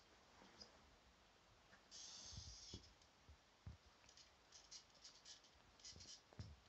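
Faint rustling and scratching of a kitten's paws and claws on a quilted comforter as it tumbles chasing its tail, with a few soft thumps. There is a short rustle about two seconds in and a run of quick scratches in the second half.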